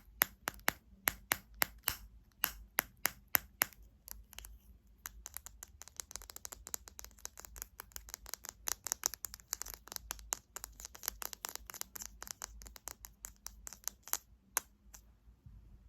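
Fingernails tapping on hard objects: separate crisp taps, about four or five a second, then after a short pause a faster, denser run of light clicking that stops about a second before the end.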